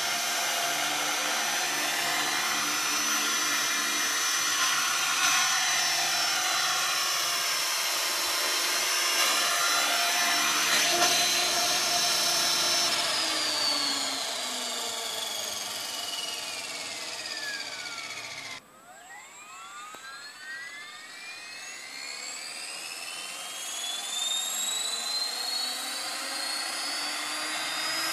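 Large radio-controlled model helicopter: a steady whine from its motor and rotor while it hovers and sets down, then winding down as the pitch falls. About two-thirds through there is a sudden cut, after which the whine rises in pitch as the rotor spools up again.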